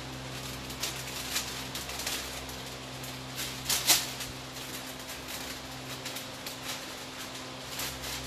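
Masking paper rustling and crackling as masking tape is pulled and pressed down over it: a string of irregular short crackles, one louder one about four seconds in, over a steady low hum.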